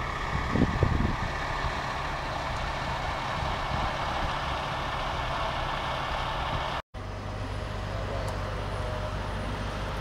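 Heavy tow trucks' diesel engines running steadily, a continuous low rumble. The sound drops out for an instant about seven seconds in, and a steadier low engine hum follows.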